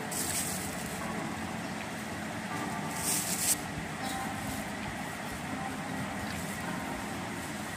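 A hand rubbing and spreading dry flour over a wooden rolling board, two short scrapes about a third of a second in and around three seconds in, over a steady background hum.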